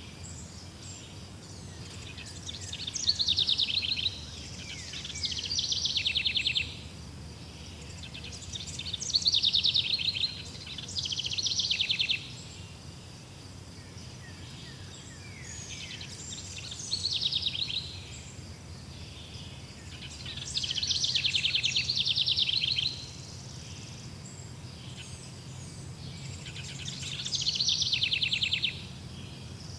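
Bird song: high, rapidly trilling phrases, each a second or two long, come about seven times with short gaps between them, over a steady low background hum.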